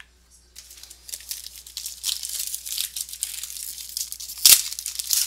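Plastic card-pack wrapper crinkling and tearing as it is opened by hand, with one louder sharp crackle about four and a half seconds in.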